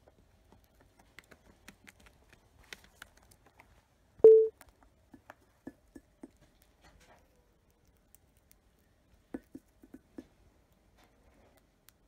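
Cockatiel pecking seed from a dish: scattered light clicks and taps of its beak on the seed and dish, in small runs of three or four taps. About four seconds in comes one loud, short, steady beep-like tone.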